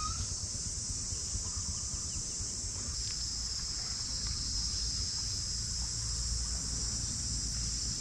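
Steady high-pitched chorus of insects, with a low wind rumble on the microphone.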